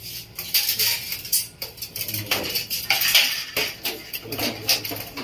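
Stainless steel window grill clinking and knocking irregularly as it is handled and set against the wall, metal striking metal.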